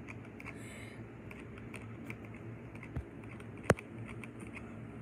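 Typing on a computer keyboard: a run of light key clicks, with one sharp, louder click a little before four seconds in.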